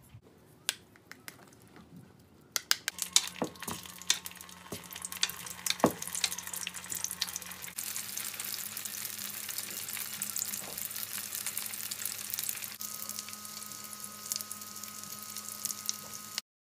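Frozen dumplings pan-frying in plenty of oil, sizzling and crackling with sharp pops from about three seconds in, settling into a dense steady sizzle that cuts off suddenly near the end. Before the frying, a few light clicks of a spoon stirring sauce in a glass bowl. A steady low hum runs under the frying.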